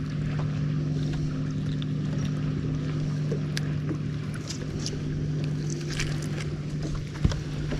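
A boat motor running steadily with an even low hum, over water and wind noise, with a few faint ticks scattered through it.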